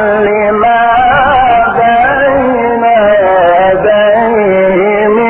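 Male Quran reciter chanting in the melodic mujawwad style: one long, unbroken phrase of held notes with wavering ornaments.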